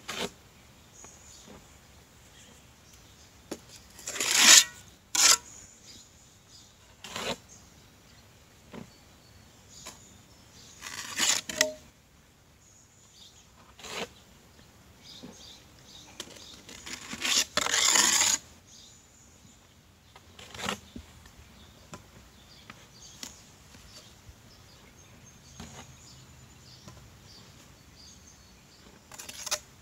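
Steel mason's trowel scraping and slapping mortar onto the top of a concrete block, in a series of short separate strokes with pauses between, the longest about two-thirds of the way in.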